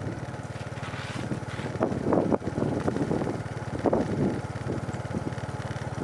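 A small engine running steadily, a low drone with a fast, even pulse, with a few louder irregular noises over it about two and four seconds in.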